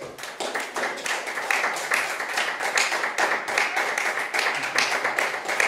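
Audience applauding: dense hand clapping that swells over about the first second as the music ends, then holds steady.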